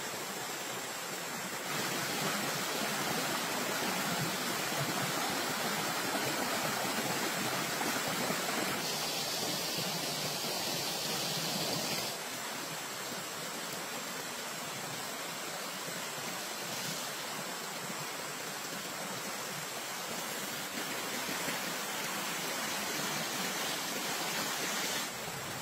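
Steady rushing of a shallow stream flowing over stones. It steps louder for a long stretch near the start and again near the end.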